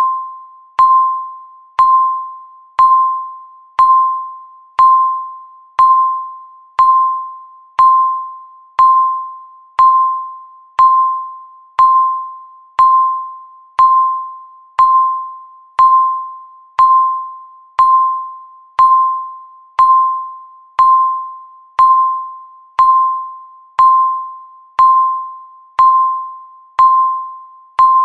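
Countdown timer's electronic beep sounding once every second, marking each second left. Each beep is a single steady mid-pitched tone that starts sharply and fades out before the next.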